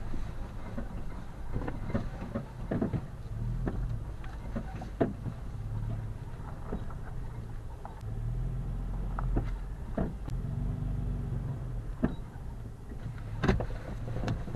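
Car driving slowly along a dirt track: a steady low engine and road hum, with scattered short knocks and rattles.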